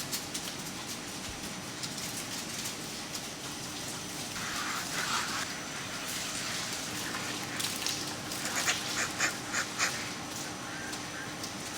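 Ducks quacking: one call about four and a half seconds in, then a quick run of about six quacks between eight and a half and ten seconds, over a steady background hum.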